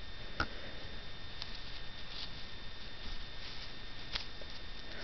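Faint rustling of fingers scratching through a sun conure's feathers, with a few soft clicks scattered through.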